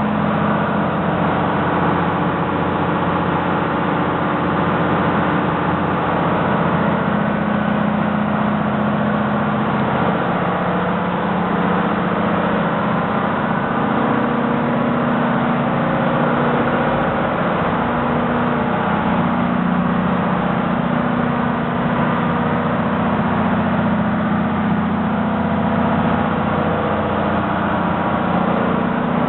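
Steady, loud engine-room noise from running diesel machinery: an even, dense drone with a steady low hum that holds without a break.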